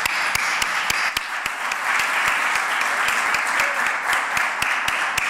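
Audience applauding, with one clapper's sharp, regular claps standing out at about three a second.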